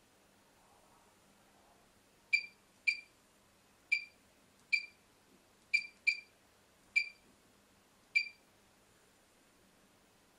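Touch-screen control panel of an LY 5200 BGA rework station beeping once for each key press on its on-screen keyboard: eight short beeps at an uneven pace, starting about two seconds in.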